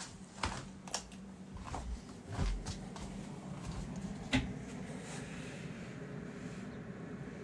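Keys of a KOORUI MK082 mechanical keyboard with red linear switches being pressed: a few scattered clacks over the first four and a half seconds, the sharpest near the end of them, over a steady low hum.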